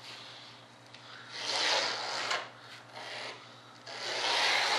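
Marking pen drawn along a sheet of foam board in a few long rubbing strokes, the longest starting about four seconds in. A faint steady hum sits underneath.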